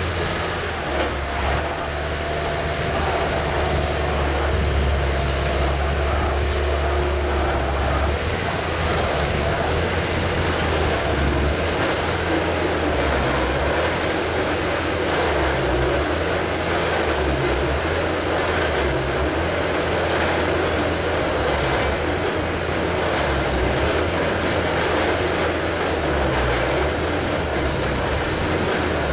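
Highway HHF truck-mounted pressure digger drilling into rock: a loud, steady mechanical rumble of the machine under load as the auger grinds down. Irregular clattering knocks come through more often from about halfway.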